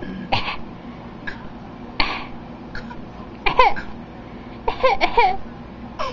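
Young child fake coughing: a string of short, forced coughs, several of them ending in a high-pitched voiced squeak.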